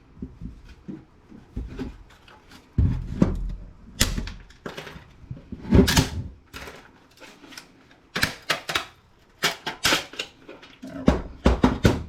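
Flimsy plastic casing of a Cisco ASA 5505 being pried and pulled apart by hand: irregular sharp plastic clicks and snaps, several in quick clusters, with knocks from handling the case.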